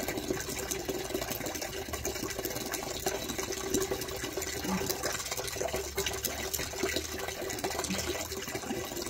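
Hands scrubbing a Rottweiler's soap-lathered wet coat, a dense wet crackling and squishing, over a steady low mechanical hum.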